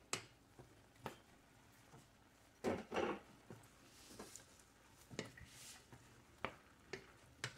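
Wooden spoon stirring diced pork in a stainless steel pot: scattered soft knocks and scrapes against the pot, the loudest a short scrape about two and a half seconds in.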